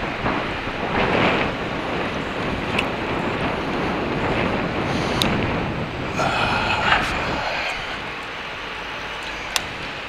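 Wind rushing over the microphone of a camera riding along on an electric bike, over the hum of city street traffic. A few brief sharp clicks and, about six seconds in, a short pitched tone lasting about a second.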